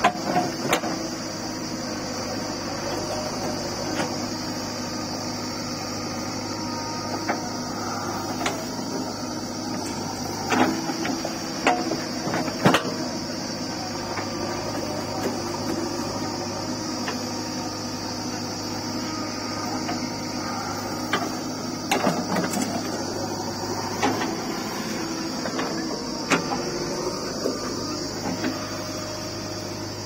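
JCB 3DX backhoe loader's diesel engine running under load as its hydraulic backhoe bucket digs into dry, clumpy soil, with a steady high whine over it. Sharp knocks and clanks from the bucket and its linkage come now and then, the loudest about midway.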